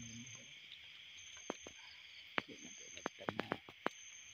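Steady high buzzing of night insects. A run of sharp clicks and snaps comes about two and a half to four seconds in.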